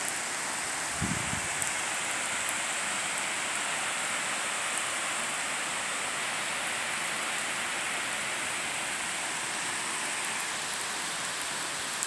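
Heavy rain pouring steadily, an even dense hiss, with a brief low thump about a second in.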